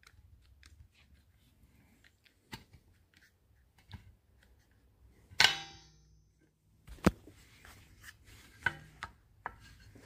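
Metal clicks and light scraping of a drum-brake shoe and its return springs being worked into place against the wheel-cylinder piston, with one loud ringing metal clank about five seconds in and a sharp click a couple of seconds later.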